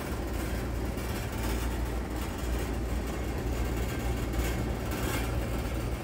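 Steady low machinery hum with a faint hiss of moving air, as of building HVAC equipment running, with no distinct click or start-up.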